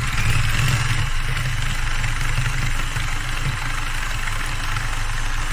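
Electric hand mixer running steadily at full speed, its beaters whipping dissolved jelly into a soufflé foam, with a plastic bag over the mixer and bowl.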